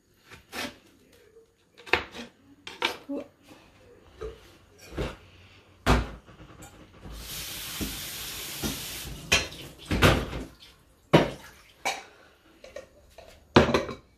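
Irregular sharp knocks and clatter of kitchen work: a knife cutting on a wooden chopping board and being put down, then a steel colander and ceramic bowl set down on the counter. About seven seconds in, a steady hiss lasts about two seconds.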